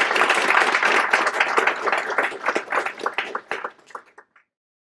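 Audience applauding, a dense patter of many hands clapping that thins to scattered single claps and stops about four seconds in.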